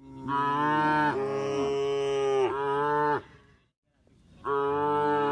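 Cow mooing: one long moo of about three seconds that shifts pitch twice, then, after a short pause, a second moo begins near the end.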